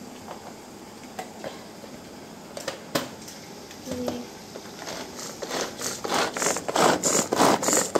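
A spatula scraping against a steel kitchen vessel in quick repeated strokes that grow louder over the last few seconds, after a few scattered knocks of kitchenware.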